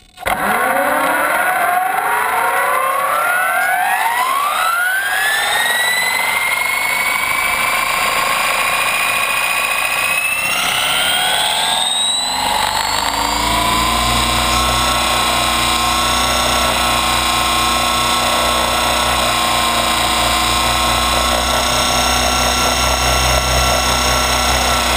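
Align T-Rex 550 electric RC helicopter heard from its own frame: the brushless motor and gear whine rise in pitch as the rotor spools up over the first several seconds, hold, then rise again about ten seconds in. A low rotor thrum joins a few seconds later and stays steady at full head speed.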